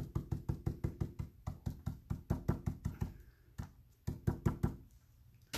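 Stencil brush tapping rapidly straight up and down on a plastic stencil taped over a painted board, about nine or ten taps a second. The taps thin out to a few scattered ones after about three seconds.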